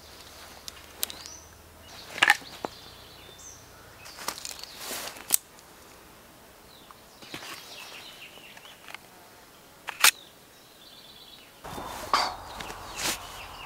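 Knife handling: a series of sharp metallic clicks and snaps as blades are drawn and folding knives flicked open, with a few short whooshes between them. The snaps are spaced irregularly, and the loudest comes about ten seconds in.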